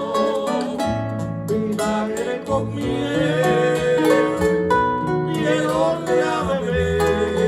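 Praise hymn music played on plucked strings over a steady bass line.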